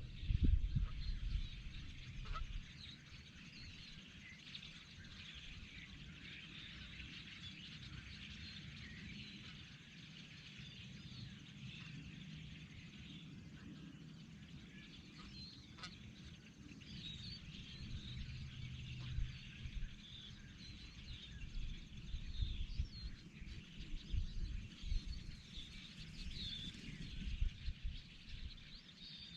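Faint outdoor ambience of birds calling in the distance, a dense chatter of small chirps, with uneven low rumbles of wind on the microphone that are strongest in the first couple of seconds and again near the end.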